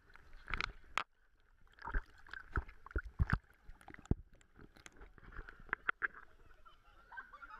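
River water splashing and sloshing as a dense swarm of large fish churns the surface and water laps at a half-submerged camera. The sound comes as irregular sharp splashes and plops, busiest in the middle.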